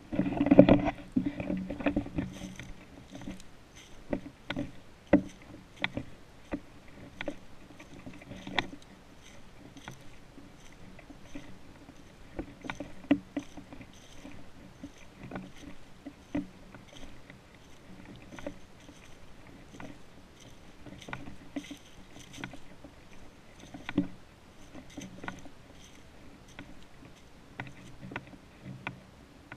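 Footsteps crunching through dry fallen leaves at a steady walking pace, with rustling between steps; loudest in the first couple of seconds.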